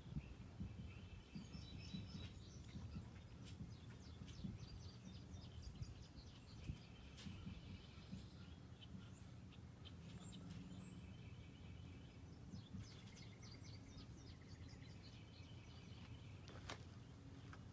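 Near silence: faint chirping in short rapid runs over a low rumble.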